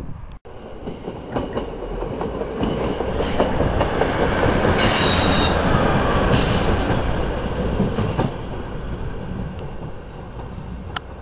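Class 156 Sprinter diesel multiple unit passing close, its underfloor diesel engines and wheels on the rails growing louder to a peak about five seconds in, then fading as it moves away. A brief high wheel squeal on the curve comes at the loudest point, with a few rail-joint clicks.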